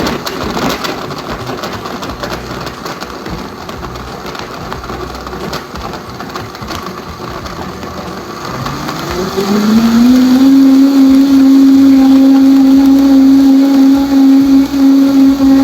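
Countertop blender on its smoothie setting, blending water, cashew butter and dates. It starts at a lower churning speed, then about eight seconds in the motor winds up with a rising whine and holds a loud, steady high-speed hum as the smoothie program ramps up.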